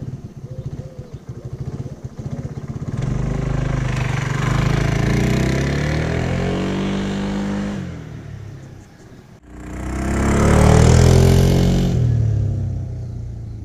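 Vespa GT 125 L scooter's engine ticking over unevenly, then pulling away with its pitch climbing and holding steady. After a sudden cut about two-thirds in, it passes close by again, swelling to its loudest and dropping in pitch as it moves off.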